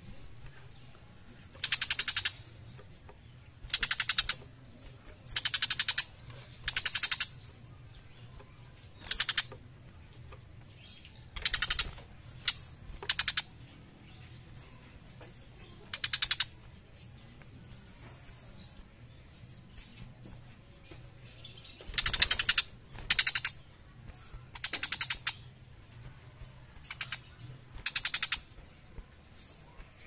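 Young tiger shrike giving repeated harsh, rasping chatter calls, each under a second long, at irregular intervals of one to three seconds.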